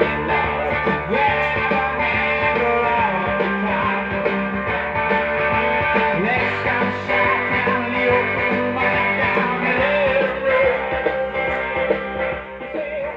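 Rock music with guitar and singing, an AM broadcast playing through the speaker of a 1938 RCA Victor K62 console tube radio. The sound has little treble, cut off above about 4 to 5 kHz as AM radio is.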